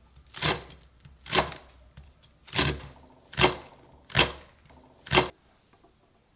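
Kitchen knife slicing a green onion on a wooden cutting board: six separate chops, about one a second, each a sharp knock of the blade on the board, stopping about five seconds in.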